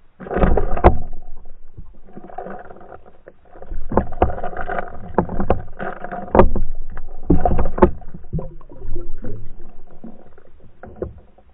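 Underwater camera rig jolted and dragged as a pike strikes and fights the lures: water churning and rushing past the housing in several loud surges, with sharp knocks and rattles of the lures and rig against the camera. It starts suddenly just after the start and dies away near the end.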